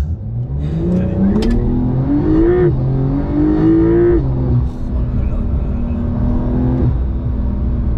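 Porsche 911 GTS (992) twin-turbo 3.0-litre flat-six under hard acceleration, its pitch rising for about two and a half seconds, dipping briefly and climbing again. About four seconds in it drops to a steady lower pitch and holds there, easing lower near the end.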